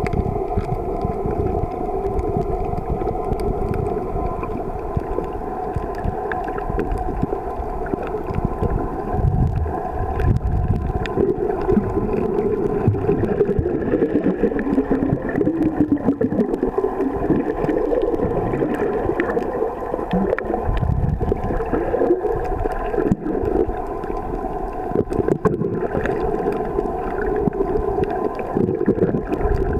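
Underwater sound picked up by a camera's microphone beneath the surface: a muffled, continuous wash of water noise with steady droning tones and scattered faint clicks.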